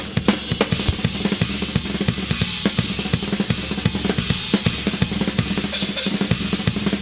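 Live rock drum solo on a full drum kit: fast, dense strokes on bass drum, snare and toms, with a cymbal crash about six seconds in.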